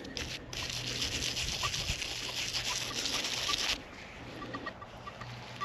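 Scratchy rubbing as dirt is cleaned off a freshly dug metal dog tag. It lasts about three and a half seconds, then stops.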